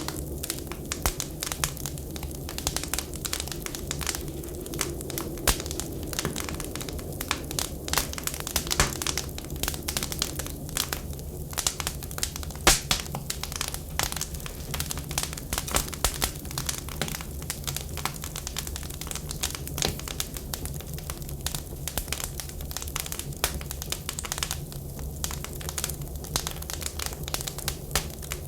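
Wood fire crackling and popping with many irregular sharp snaps, over a steady low rumble.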